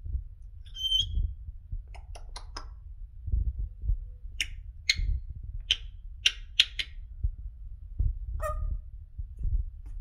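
African grey parrot making short non-word sounds: a whistled note about a second in, then runs of sharp clicks and squeaks, and a lower call that falls in pitch near the end. A low thumping rumble runs underneath.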